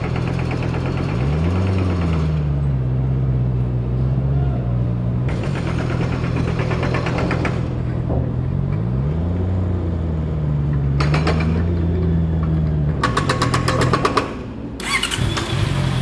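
Honda CB650R's 649 cc inline-four engine idling steadily, blipped twice, about a second in and again about eight and a half seconds in, each time rising in pitch and settling back to idle.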